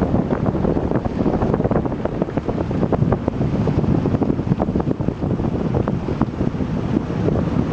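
A motorboat under way: loud, steady wind buffeting the microphone over the boat's running engine and rushing water, with crackly gusts throughout.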